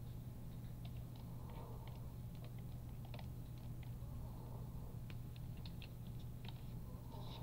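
Faint, irregular computer keyboard clicks over a steady low hum.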